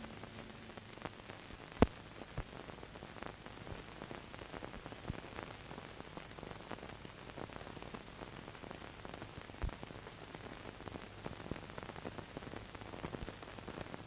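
Faint crackling hiss, like static, with small clicks scattered through it and a sharper click about two seconds in.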